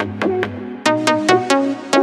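Electronic music with a steady beat: regular drum hits over a synth bass line and plucked synth notes, the beat growing busier about a second in.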